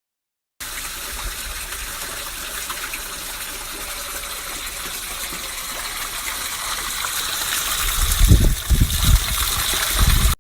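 Water rushing steadily, growing gradually louder, with heavy low thumps on the microphone near the end.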